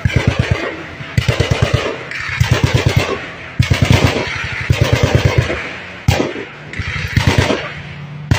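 Repeated loud bursts of automatic gunfire, each about a second long with the shots coming roughly ten a second, and a single sharp shot about six seconds in.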